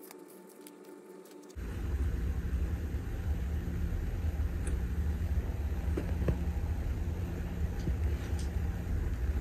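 A steady low rumble starts abruptly about a second and a half in, with a few faint light clicks over it.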